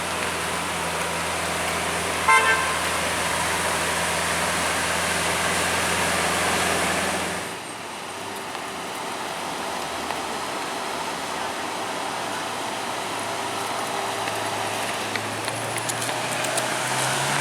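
City street traffic with a steady low engine hum, and one short car horn toot about two seconds in. The low hum cuts off abruptly about seven and a half seconds in, leaving steady traffic noise.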